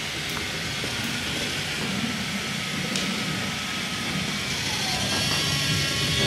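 Battery-powered Brio toy trains running on wooden track: a steady whir of small electric motors and wheels rolling on wood, with a single click about three seconds in.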